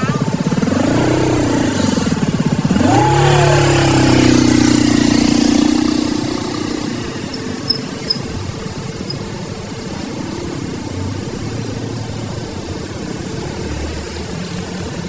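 A vehicle engine revs up and back down twice in the first few seconds, then holds a steady pitch for a few seconds. It then drops to a quieter, steady low rumble.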